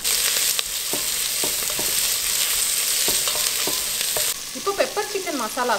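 Sliced onions sizzling in hot oil in a stainless steel pot, stirred with a wooden spatula that knocks and scrapes against the pot. The sizzle drops away suddenly about four seconds in.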